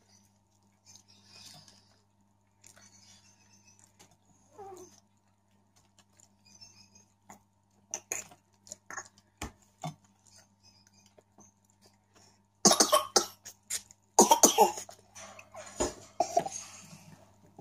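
Faint clicks and mouth noises of eating, then a person coughs hard in two loud fits, about thirteen and fourteen seconds in, with softer coughing or throat noise after.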